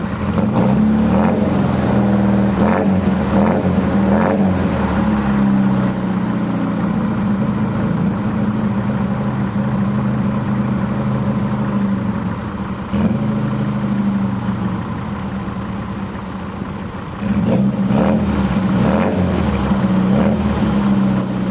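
Mk2 Ford Fiesta engine running on held throttle after sitting for six months, unable to idle on its own. The revs ease down for a few seconds past the middle and pick up again near the end.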